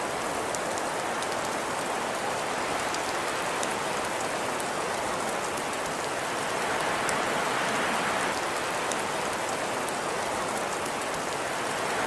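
Steady, even hiss of precipitation falling on surfaces, with faint scattered drop ticks.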